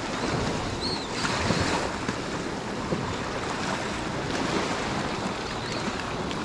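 Small waves washing onto a stony shingle beach, a steady surf hiss, with wind buffeting the microphone.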